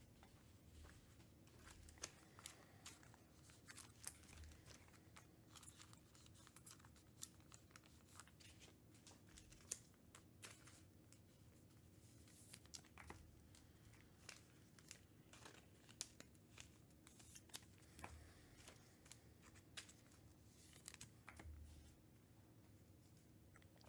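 Faint tearing and crinkling of a trading-card pack wrapper being opened, with scattered small clicks and rustles of handling, over quiet room tone.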